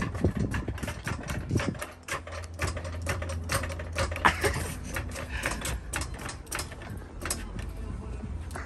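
Hydraulic floor jack being pumped with its long handle to lift the front of a car: a run of short mechanical clicks, several a second, at an uneven pace.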